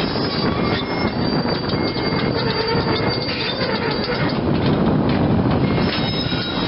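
Hyundai Robex 290LC crawler excavator travelling on its steel tracks, its six-cylinder diesel engine running under a steady clanking of the track chain with high squeals from the undercarriage.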